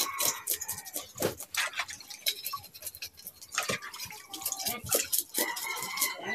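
A whole fish being washed by hand in a plastic basin of water: repeated splashing and dripping as it is rubbed and lifted in and out of the water. A chicken clucks near the end.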